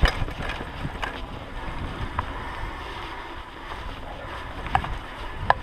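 Mountain bike rolling along a dirt and leaf-covered singletrack: a steady rumble of tyres and wind noise on the microphone, with a few sharp clicks and rattles from the bike, the loudest right at the start and near the end.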